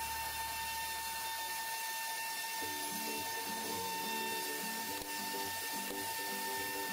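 CNC Kral router's spindle running with a steady high whine as it carves an MDF sheet. From about two and a half seconds in, a repeating pattern of short, changing lower tones joins it.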